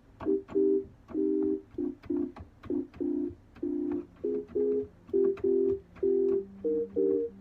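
Organ-like synthesizer chords played as short staccato stabs in a hip-hop beat pattern, with light clicks between them. A lower held bass note comes in about halfway through.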